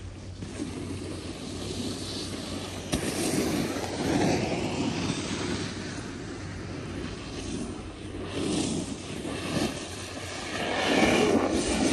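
Snowboards sliding and scraping over firm groomed snow, mixed with wind rushing over the microphone. The scrape swells in surges, the loudest near the end.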